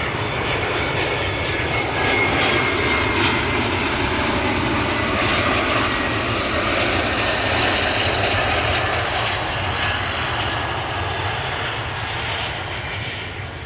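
Jet airliner landing, its engines making a loud, steady rushing noise with a faint high whine, easing off slightly near the end.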